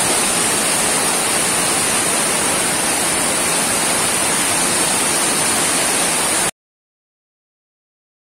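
River water rushing over a shallow rocky cascade: a steady, dense rush that cuts off abruptly to dead silence about six and a half seconds in.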